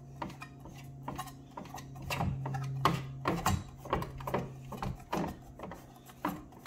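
Booster pump impeller being spun by hand onto the motor shaft: a run of irregular light clicks and rattles, busiest in the middle, over a steady low hum.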